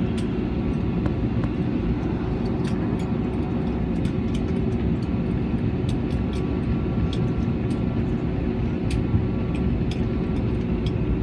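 Steady cabin noise inside an Airbus airliner after landing: the engines and air system give an even hum with a constant low tone. Scattered light clicks sound through it.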